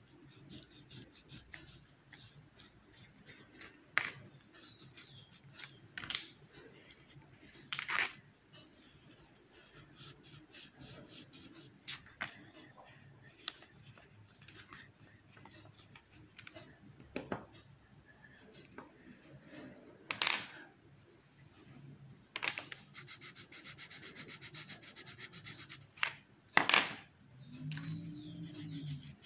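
Black colored pencil scratching on paper in short, repeated strokes as lines are hatched and drawn in, with a few sharper, louder strokes scattered through.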